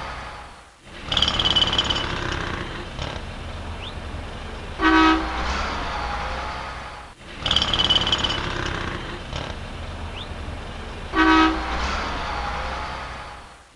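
City street traffic: a steady hum of passing vehicles with a short car-horn honk twice, about five and eleven seconds in. The loop repeats, each time cutting out briefly and bringing back a short high squeal.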